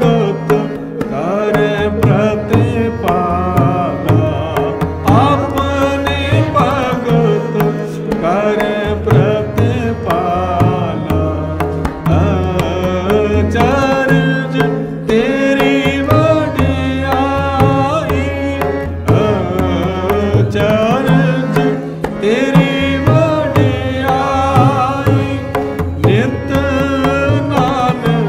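Sikh shabad kirtan in Raag Sorath: singing over harmonium, with a steady tabla beat.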